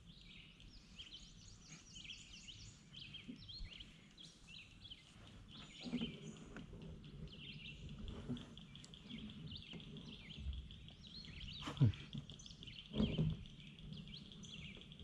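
Birds singing and calling from the surrounding trees, many short chirps overlapping, with a few dull knocks from the boat or gear; the sharpest knock comes about twelve seconds in.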